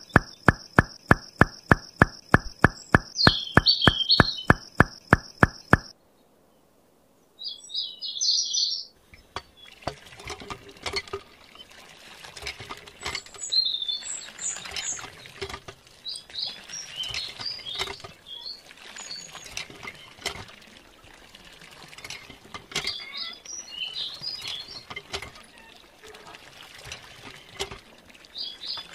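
Water pouring in a thin stream from the spout of a miniature hand pump into a small channel, with high bird chirps over it. It opens with a fast, regular clicking beat, about four a second, that stops suddenly about six seconds in.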